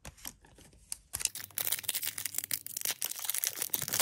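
Foil Pokémon booster-pack wrapper crinkling and tearing as it is pulled open by hand, starting about a second in after a few faint clicks.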